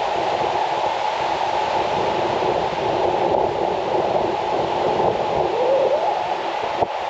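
Swollen mountain river in typhoon flood, a steady rushing roar of fast water.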